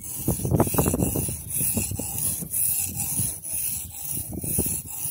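Steel butter knife blade scraping back and forth on the coarse side of a cheap whetstone wetted with a sewing-oil and water mix, in repeated gritty strokes about once or twice a second. This is the edge being ground in on the coarse grit.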